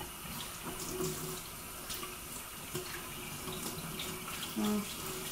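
Kitchen tap running into a stainless steel sink while dishes are washed by hand, with light clinks of dishware. A short pitched sound, the loudest moment, comes about four and a half seconds in.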